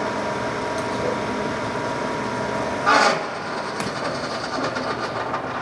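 Geared headstock of a Lion 20 x 40 gap-bed lathe running in its red speed range with a clattering gear train, where the owner traces a ticking to a small gear that has some roughness between one or two teeth. About three seconds in there is a sharp clunk, after which the steady whine drops out and the gearing runs on a little quieter.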